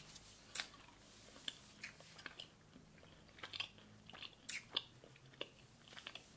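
Faint mouth sounds of two people chewing soft sour gummy candy (Sour Patch Kids): scattered wet clicks and smacks.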